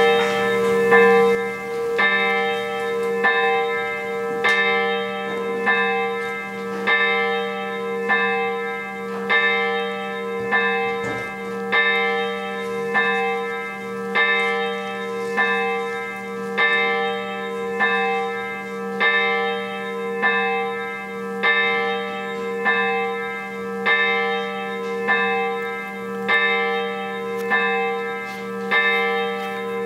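A single church bell tolling, struck at the same pitch about once a second, each stroke ringing on into the next.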